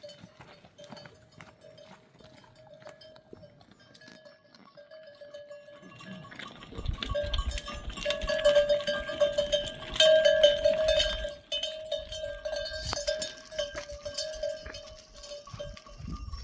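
A flock of sheep on the move, their neck bells clanking and ringing, with many small clicks of hooves and bells. It grows much louder about six seconds in.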